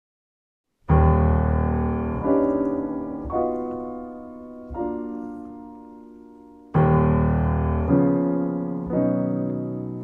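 Solo grand piano playing slow, full chords, each struck and left to ring and fade before the next. It comes in about a second in after silence, with seven chords in all and a loud fresh attack a little past the middle.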